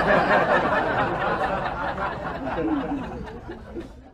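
A crowd of people laughing and chattering all at once, loudest at the start and dying away before cutting off abruptly.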